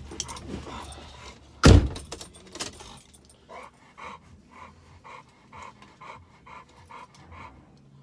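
A vehicle door shutting with one loud thump, then a dog panting rhythmically, about two to three breaths a second.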